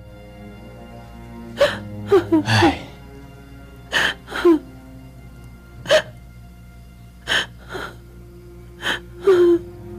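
A woman sobbing in short, broken cries about once a second, each falling in pitch, over steady sad background music.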